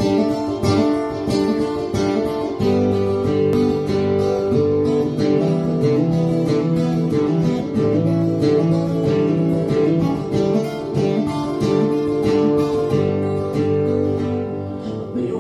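Acoustic guitar strummed in a steady rhythm, playing the instrumental intro of a country song.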